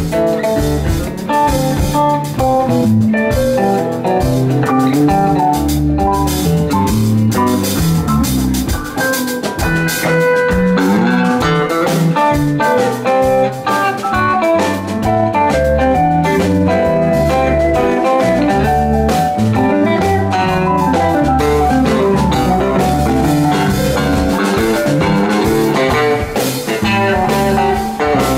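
Live band playing an instrumental jam: an electric guitar takes a lead line of shifting notes over a drum kit, with a full, steady low end.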